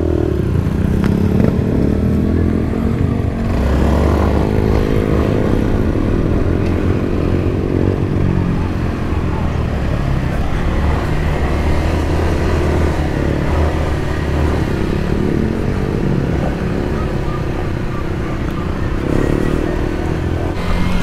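Yamaha dirt bike engine under way, its pitch rising and falling again and again as it is revved and accelerated, over a steady low rumble.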